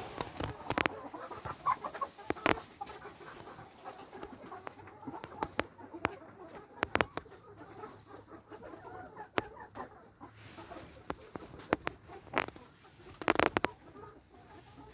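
Chickens clucking softly, with scattered sharp clicks and knocks throughout.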